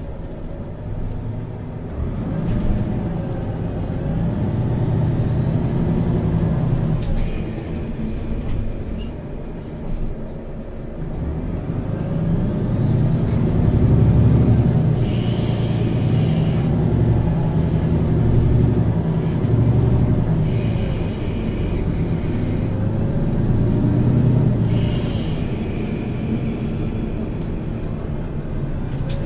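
MAN Lions City Euro 6 city bus's diesel engine heard on board, pulling hard three times with its note and a faint whine rising through the gears, easing back in between.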